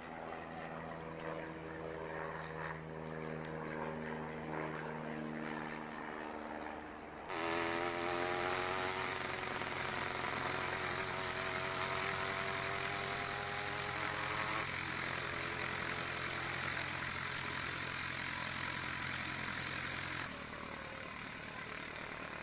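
Piston engine and propeller of a single-engine high-wing light airplane running as it taxies. About seven seconds in the sound cuts to a louder, closer engine whose pitch rises slowly for several seconds, then holds steady.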